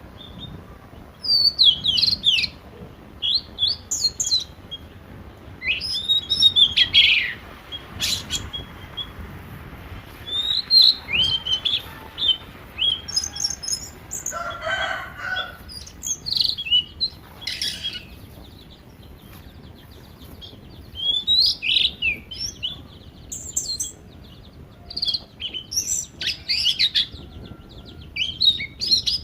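Birds chirping: clusters of short, high, falling chirps that come and go throughout, with a brief rush of noise about halfway through.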